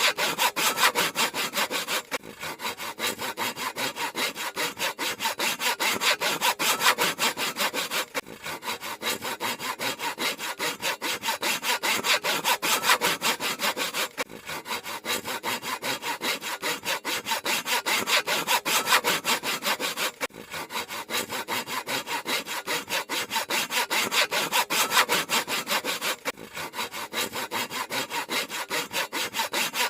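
Handsaw cutting through wood in rapid, even back-and-forth strokes, with a brief break about every six seconds.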